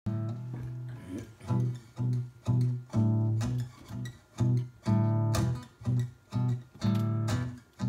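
Acoustic guitar playing a tango accompaniment, chords and bass notes plucked in a steady, marked beat of about two strokes a second.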